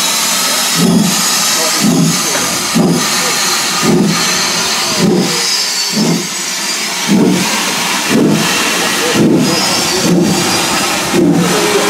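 Steam locomotive pulling away with its cylinder drain cocks open: a steady steam hiss with exhaust beats about once a second.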